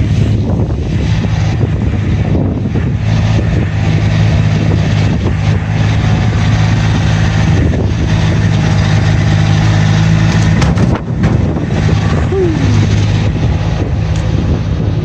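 An engine running steadily at a constant speed, with a brief dip about eleven seconds in.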